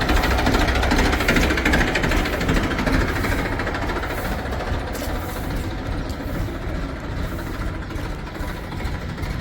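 Diesel engine of a backhoe loader or farm tractor running with a rapid, knocking diesel beat, gradually getting quieter.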